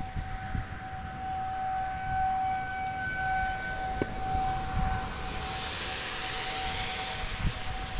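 Outdoor tornado warning siren sounding a steady tone that swells and fades slightly, over low rumbles. About five seconds in, a rushing hiss builds up.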